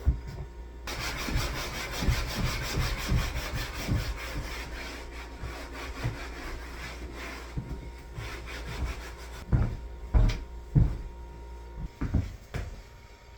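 Quick repeated scraping strokes for several seconds, then a few separate knocks.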